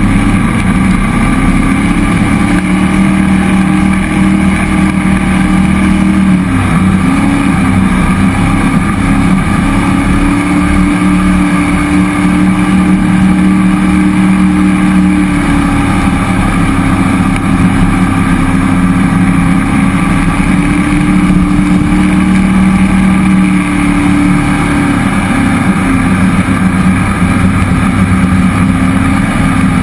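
Cammed 5.3L LS V8 in a jet boat running steadily under way, its exhaust note holding an even pitch with brief small dips in revs about six seconds in and again about three-quarters of the way through.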